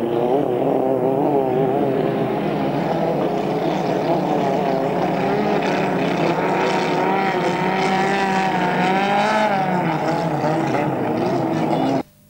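Racing inboard engine of a vintage hydroplane running hard, its pitch wavering up and down, rising then falling off, before the sound cuts off suddenly near the end.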